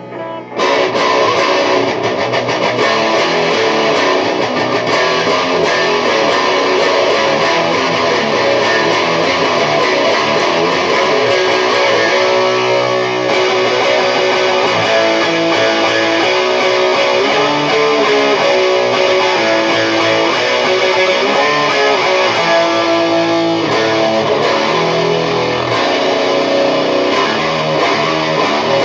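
Heavily distorted electric guitar riffing in drop B tuning, with a Bare Knuckle Painkiller bridge humbucker played through a Mesa Dual Rectifier amplifier with the master and gain turned up high. It is heard through a camera's built-in microphone. The playing starts about half a second in and goes on without a break.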